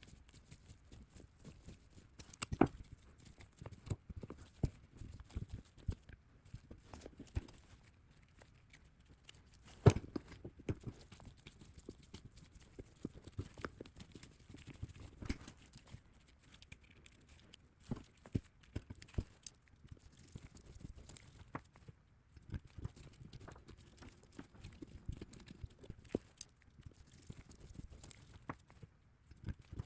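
Irregular small clicks, taps and knocks of a magnetic screwdriver and screws being worked into a motorcycle gas cap body by hand. Two sharper knocks stand out, a couple of seconds in and about ten seconds in.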